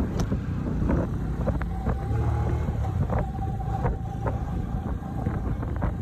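Low engine rumble and wind on the microphone from riding along a road in a small motor vehicle, with scattered knocks and rattles and a faint steady tone from about two seconds in until about five seconds in.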